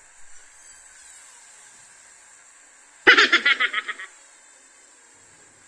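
A person laughing briefly: a quick run of about seven pulses lasting about a second, about three seconds in, over a faint steady hiss.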